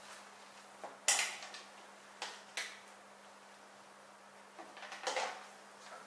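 Metal clanks and clinks as a Snow Peak IGT Slim table frame is handled and its folding wire legs are swung out: a sharp clank about a second in, two lighter clinks shortly after, and a longer rattle of clinks near the end.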